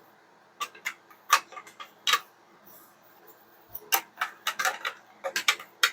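Hard plastic toy playset pieces clicking and clacking as they are handled and fitted together: a few separate clicks in the first two seconds, then a quicker run of clicks near the end.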